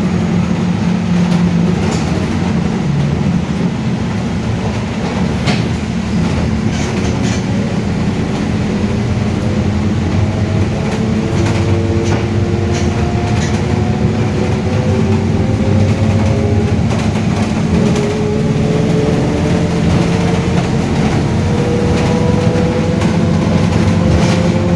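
Mercedes-Benz OF-1721 city bus under way, its rear differential howling very loudly: a whine that climbs slowly in pitch several times as the bus gathers speed, over the steady diesel running noise. A few sharp rattles from the bus body.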